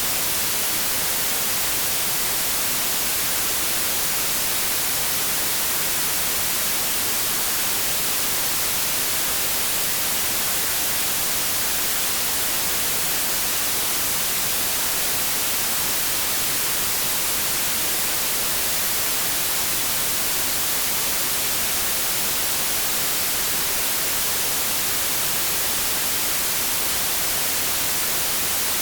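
Continuous synthetic white noise: a steady, even hiss, strongest in the high end, with no change throughout.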